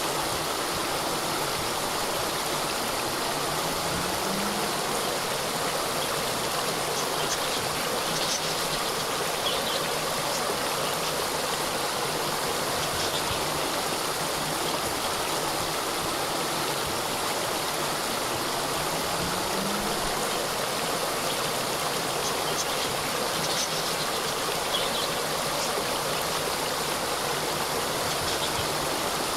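Small waterfall running steadily, water splashing and rushing without a break, with a few faint high chirps now and then.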